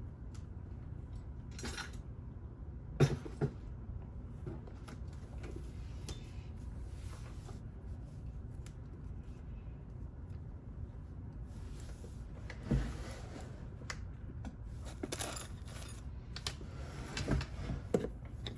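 Small metal tools being handled and set down: scattered clicks, clinks and knocks, the loudest about three seconds in and a cluster near the end, over a low steady hum.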